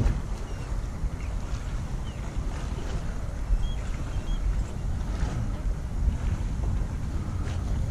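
Wind rumbling steadily on the microphone.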